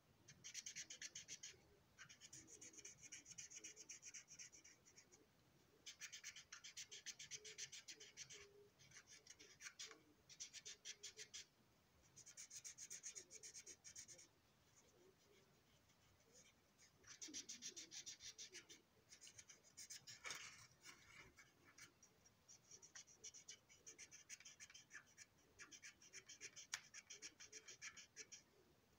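Felt-tip marker stroked quickly back and forth over the plastic body of a box car, in spells of a few seconds with short pauses between.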